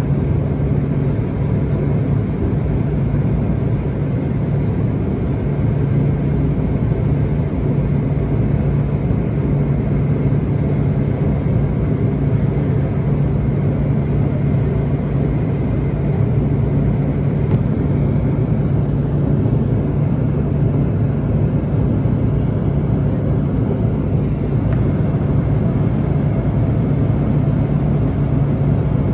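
Turboprop engine and propeller of a small commuter plane, heard from inside the cabin in flight: a loud, steady drone with a strong low hum.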